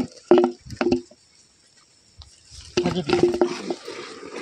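Short bursts of people's voices with no clear words: two brief ones near the start, then a longer run about three seconds in.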